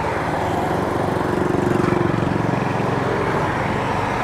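Small motorbike engine running steadily at low speed, with road traffic behind it. The engine note swells a little about two seconds in.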